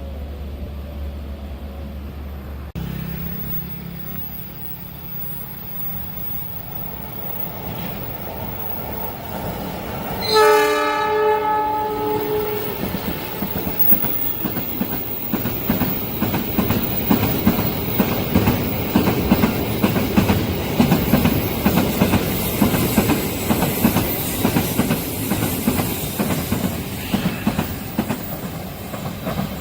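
A train's air horn sounds once for about two seconds, then the train passes at speed with a rapid, regular clatter of wheels over the rail joints that grows louder toward the end. A low steady hum fills the first few seconds.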